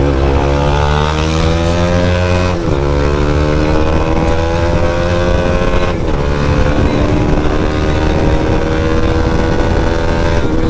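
Bajaj Pulsar NS200's single-cylinder engine pulled hard under full acceleration, its pitch rising through the gears with two quick upshifts, about two and a half and six seconds in, then holding a high, steady note at around 100 km/h.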